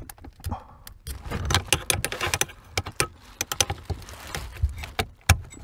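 Irregular clicking and rattling of hands working the retaining clip off a heater core hose connection under the dashboard.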